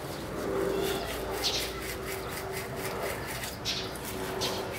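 Wet wheel woolly brush scrubbing around the lug nuts of an alloy wheel: a few short swishes, over a faint steady tone.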